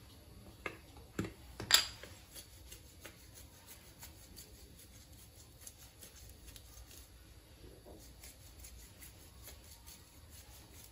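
Quiet hand sounds of seasoning toast slices. A few light clicks in the first two seconds, the sharpest near the two-second mark, are followed by soft crackling as dried oregano is rubbed between the fingers and sprinkled over the oiled bread.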